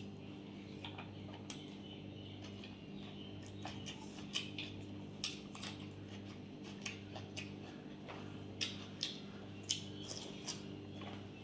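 Close-up eating sounds: chewing a mouthful of fried rice and chili chicken, with irregular sharp wet clicks and smacks, over a steady low electrical hum.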